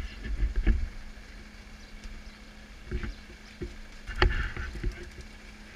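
Mountain bikes rolling past close by at a group start: a low rumble of tyres and wind on the microphone, with scattered clicks and knocks from the bikes, the sharpest about four seconds in.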